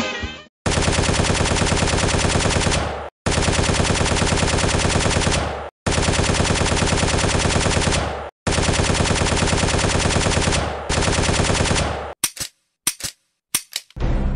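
Machine-gun fire sound effect: five long bursts of rapid, evenly spaced shots, each about two and a half seconds, with short breaks between them, then a few brief bursts near the end.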